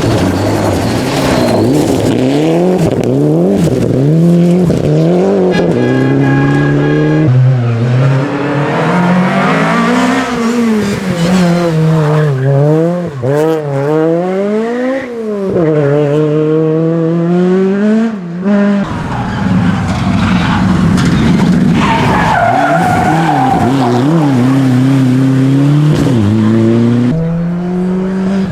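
Rally car engine driven hard, its note climbing and dropping repeatedly as the driver accelerates, shifts and lifts off.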